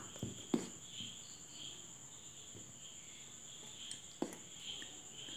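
Crickets chirping steadily in the background. A steel spoon stirs dry flour in a steel bowl and clicks sharply against the bowl about half a second in and again about four seconds in.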